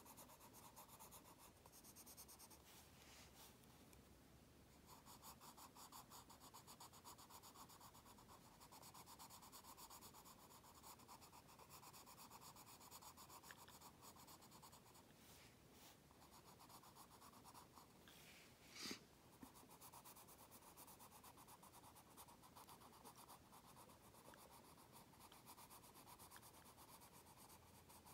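Faint, rapid scratching of a green Prismacolor colored pencil on an index card as it shades in leaves, with short pauses between runs of strokes. A brief louder scrape comes about two-thirds of the way through.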